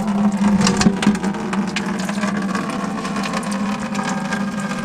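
An electric motor running at a steady speed with a rattling, grinding edge, cutting off abruptly near the end.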